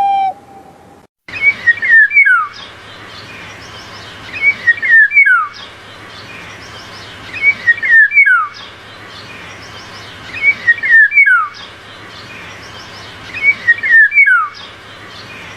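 A songbird sings the same short phrase five times, about every three seconds: a few quick chirps, then a whistled note sliding down. The song sits over a steady background hiss.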